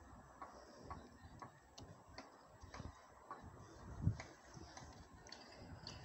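Light clicks recurring about twice a second, with one dull thump about four seconds in.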